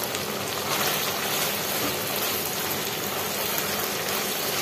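Marinated chicken pieces sizzling and bubbling in oil in a non-stick wok, a steady crackling hiss, as they cook down until the liquid dries off.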